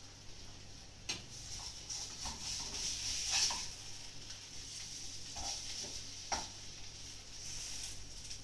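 Potato pancakes frying in oil in a frying pan, a steady high sizzle, with a utensil scraping and knocking against the pan several times, loudest about three and a half seconds in.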